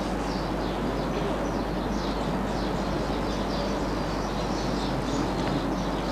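Small birds chirping repeatedly over a steady background hiss and low mains hum.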